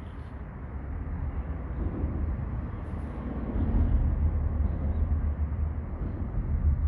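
Low, steady rumble of traffic crossing the bridge overhead, swelling about three and a half seconds in as a vehicle passes.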